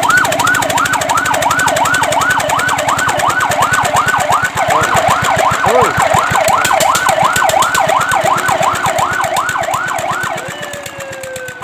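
Fire truck siren on a fast yelp, the wail sweeping up and down about three times a second. Near the end it fades, and a second tone slides slowly downward.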